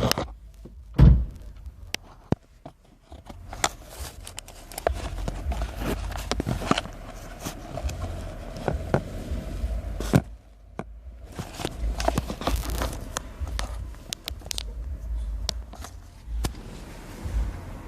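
Irregular clicks, knocks and rattles from handling plastic interior parts and tools, with one louder knock about a second in and another about ten seconds in.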